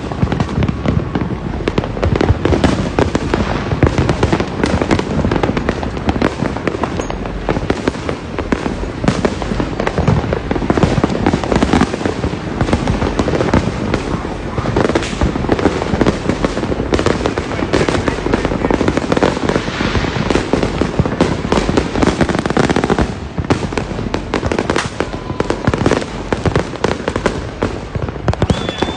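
Fireworks and firecrackers going off thick and fast, countless pops and bangs overlapping without a break, easing off briefly around two-thirds of the way through.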